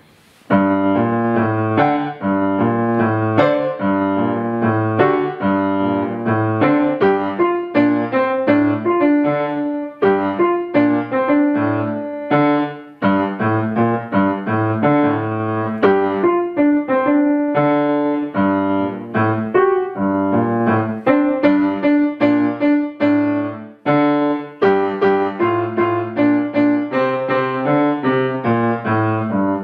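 A child playing a short piece on a grand piano: a quick run of separate notes, starting about half a second in, with brief breaks between phrases, finishing just before the end.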